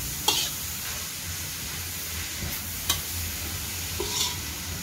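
Water spinach stir-frying in a large metal wok, a steady sizzle as a metal spatula tosses the greens, with three sharp clinks of the spatula striking the pan.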